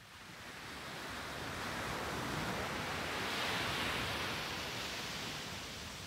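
A small sea wave breaking and washing up a sandy beach. The rush of surf swells over the first few seconds, is loudest a little past halfway, then fades as the water draws back.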